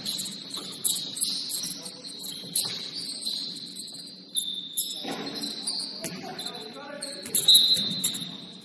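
Basketball shoes squeaking on the court floor: many short, high squeaks coming irregularly, the loudest about seven and a half seconds in, mixed with a few sharp thuds of the ball bouncing.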